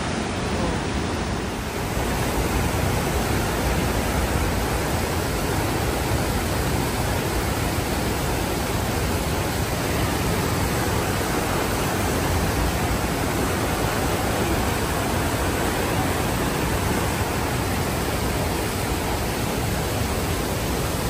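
Johnston Creek rushing over rapids: a steady, loud roar of whitewater.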